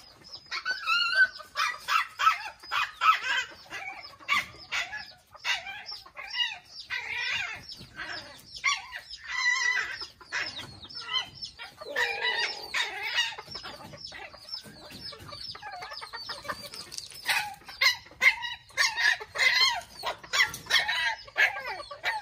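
Flock of mini Thai chickens clucking and calling, many short calls close together, loudest in bunches near the start and near the end.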